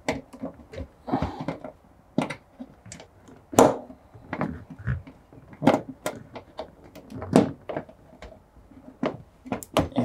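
Hands working inside an opened front-loading washing machine, making irregular knocks, clicks and rattles of plastic and metal parts, the loudest about three and a half seconds in.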